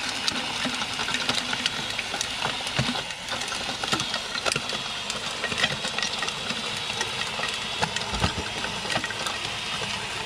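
Cordless drill running steadily, spinning the tines of a small Tilther-style garden tiller through loose soil, with many small clicks and scrapes from the tines in the dirt.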